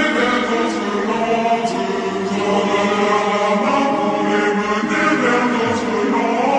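Background music: a choir singing long, held, chant-like notes.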